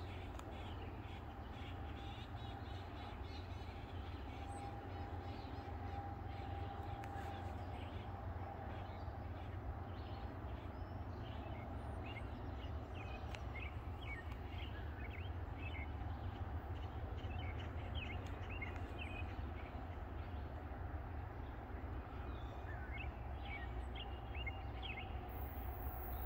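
Birds chirping and calling in short scattered notes over a steady low rumble, with a faint held tone about five to eight seconds in. The rumble grows louder near the end.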